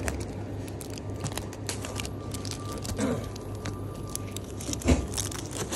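Light clicks and crackles of close handling over a steady low hum, with one louder thump about five seconds in.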